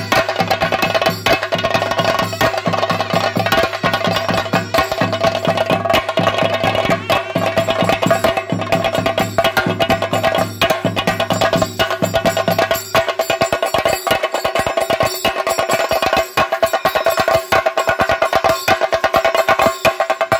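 Theyyam drumming on chenda drums at a fast, dense beat, with a steady held note above it. A low steady hum underneath drops out about two-thirds of the way through.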